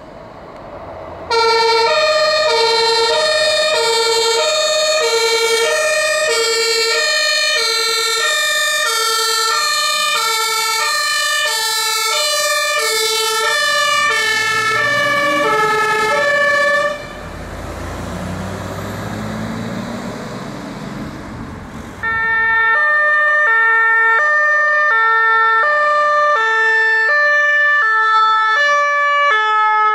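German two-tone fire brigade horn (Martinshorn) alternating between a low and a high tone as a fire engine passes; it starts about a second in and cuts off abruptly around the middle. A truck engine is heard pulling away, then a second two-tone horn starts sharply on the next fire brigade vehicle.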